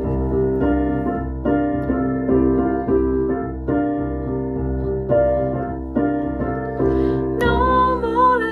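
Piano playing an instrumental interlude of the hymn: a series of struck chords, each ringing on before the next. About seven seconds in, a wavering melody line joins it.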